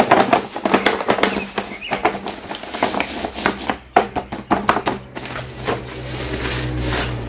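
Black plastic bubble-wrap mailer crinkling and rustling as it is handled and turned over, with a steady low hum underneath.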